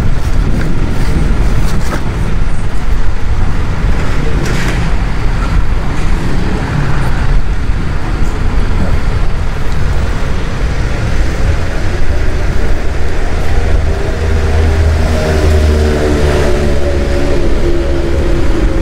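Kawasaki Ninja 400's parallel-twin engine running under a heavy, steady rumble of road and traffic noise. Over the last few seconds its engine note rises and falls in pitch as the throttle changes.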